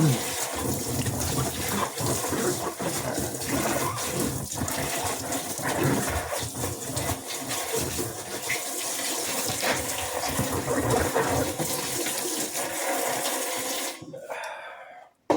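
Water pouring and splashing onto a washing machine's rubber door seal, rinsing off Jif cream cleaner; it stops about fourteen seconds in.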